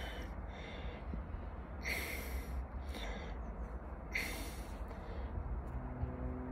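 A man breathing heavily while out of breath, with two sharp, noisy breaths about two seconds in and again about four seconds in. A faint low hum comes in near the end.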